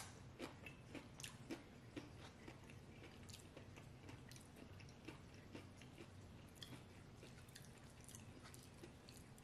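Quiet, close-miked chewing of a tortilla chip: short crunches and wet mouth clicks, thickest in the first couple of seconds, then thinning to scattered clicks.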